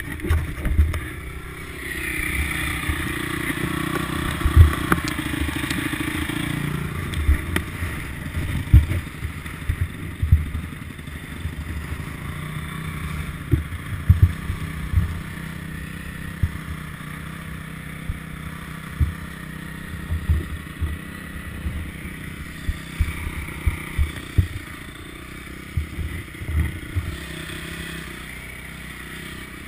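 Repeated low knocks and bumps from a helmet-mounted action camera being handled and carried. Under them, motocross bike engines run steadily in the background, louder between about two and seven seconds in.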